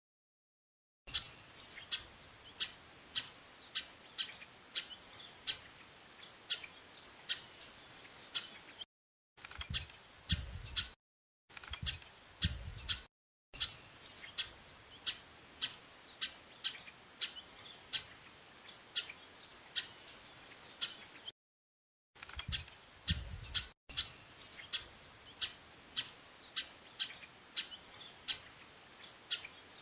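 Female chestnut-capped blackbird calling over and over: short, sharp call notes at about two a second, over a steady high-pitched insect buzz. The sound drops out to dead silence several times.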